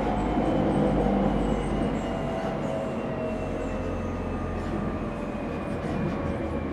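JR 209 series electric train heard from inside its motor car while slowing, its VVVF inverter and traction motors whining in several tones that fall steadily in pitch over rail and running rumble.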